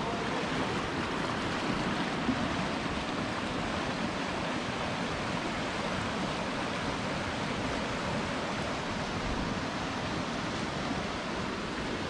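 Rain-swollen creek rushing, a steady even noise of fast-flowing floodwater with no breaks.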